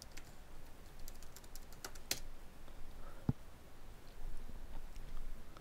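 Computer keyboard keys clicking as a command is typed, with a harder keystroke about two seconds in, then a single dull knock a second later.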